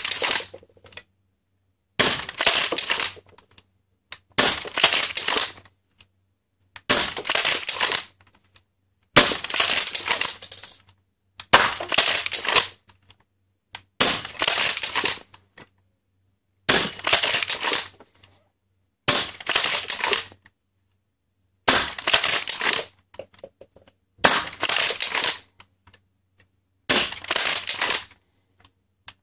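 Adventure Force Nexus Pro spring dart blaster being primed and fired over and over, about a dozen shots, one roughly every two and a half seconds, each a short burst of noise with quiet between.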